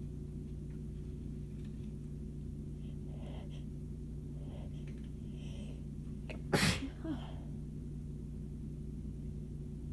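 A woman sneezing in the middle of a sneezing fit. A few faint, breathy inhales build up, then one sharp, loud sneeze comes about six and a half seconds in, with a short trailing breath just after it. A steady low hum runs underneath.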